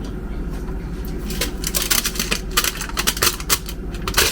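Aluminium foil crinkling and tapping as it is pressed into a stove's metal burner drip pan: irregular light clicks and taps.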